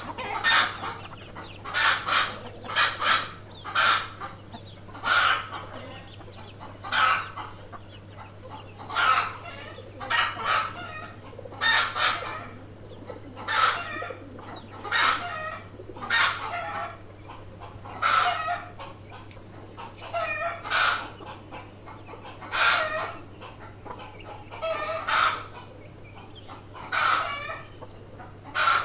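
Chickens clucking and calling, short loud calls coming every second or two, over a steady high-pitched hiss.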